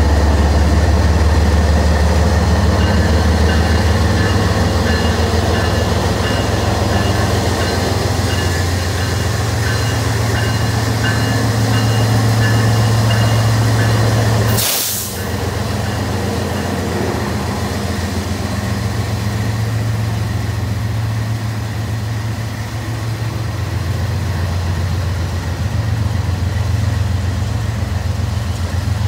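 Diesel freight locomotives running at close range, a deep steady engine drone: a BNSF GE ES44C4, then a Montana Rail Link unit. The sound breaks briefly about halfway through.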